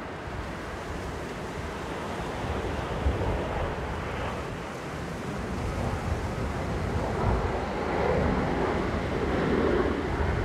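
Boeing 737-800's CFM56 jet engines running at taxi power, a steady rushing noise that grows louder as the airliner turns toward the microphone. Wind buffets the microphone.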